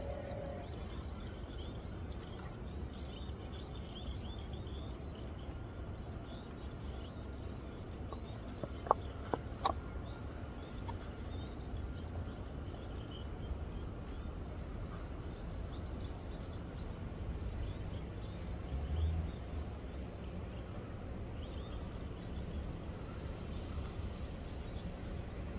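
Outdoor ambience: a steady low rumble with faint bird chirps now and then, and two sharp clicks about nine seconds in.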